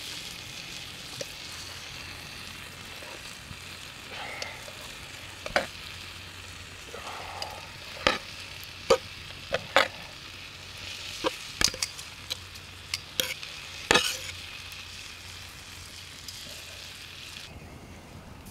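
Frying pan of pork strips sizzling steadily as it is tipped out, with a dozen or so sharp metal clinks and scrapes against an enamel plate in the middle of the stretch.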